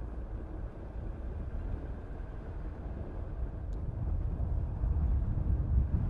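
A car being driven: a steady low rumble of engine and road noise, swelling somewhat louder in the second half.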